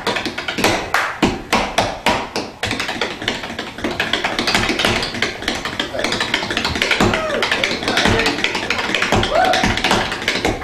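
Tap shoes striking a tap board in an unaccompanied tap routine. The first couple of seconds are separate, crisp taps; after that comes a dense, rapid run of taps.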